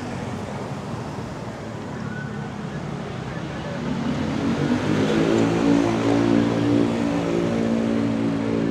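Street traffic, then a motor vehicle's engine running close by, growing louder about four seconds in and holding a steady note.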